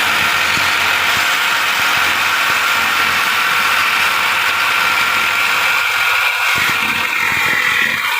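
A power tool running steadily with a high whine and hiss, as when cutting into a freezer's metal cabinet.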